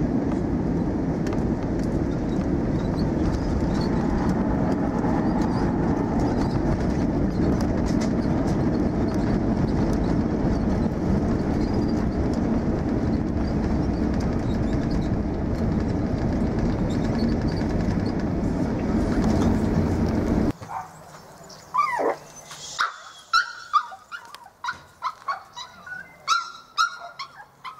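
Steady loud rush of an airliner's engines and airflow heard from inside the cabin during landing and rollout, with the wing spoilers deployed. About twenty seconds in it cuts off and excited dogs yip and whine in short, high, rising and falling cries.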